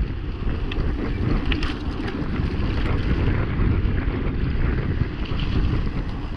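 Wind buffeting the action camera's microphone during a fast mountain-bike descent on a paved road, mixed with tyre rumble and a few brief clicks and rattles from the bike.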